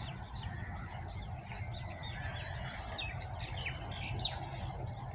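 Birds chirping in many short calls over a steady, low background noise.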